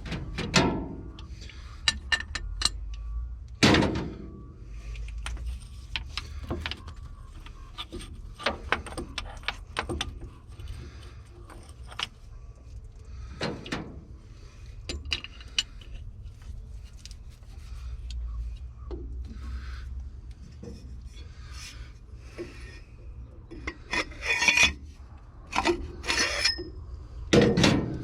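Hand tools working on the excavator's hydraulic hose fittings: irregular metallic clinks, knocks and scraping as the hose connections are loosened, with a cluster of louder knocks near the end.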